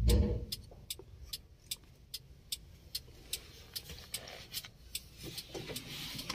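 Hazard-light flasher relay clicking steadily, about two to three clicks a second: the repaired hazard circuit is now flashing. A low thump comes right at the start, and handling noises come near the end.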